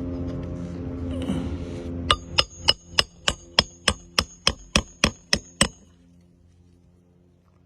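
A hammer driving a nail with about a dozen quick, even blows, each with a high metallic ring, stopping a little before the end. A steady motor hum runs underneath at the start.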